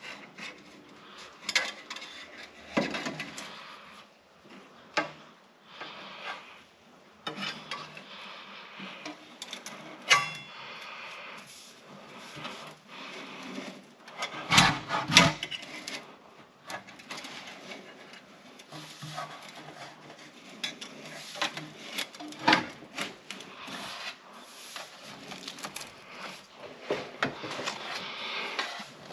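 Stainless steel flue pipe sections being handled and slid together: scattered metal knocks and clinks with rubbing of the pipe at its gasketed joints, and a louder cluster of knocks about halfway through.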